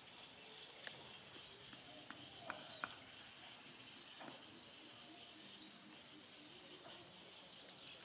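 Faint outdoor ambience of insects chirping and buzzing steadily at a high pitch, with a soft repeated chirp about twice a second in the second half. A few light clicks and taps in the first few seconds.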